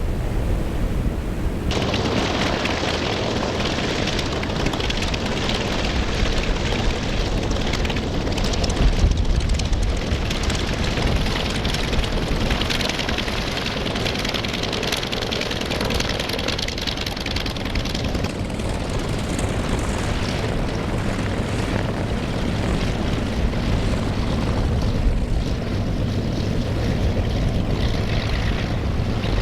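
Propeller airplane engine noise, a continuous broad drone that changes abruptly about two seconds in.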